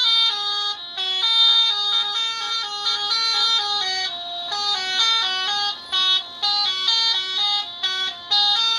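Basuri telolet horn, the multi-tone electric horn of Indonesian buses and trucks, playing a melody of short held notes that step up and down in pitch, a few notes a second. It falls silent for a moment several times between phrases.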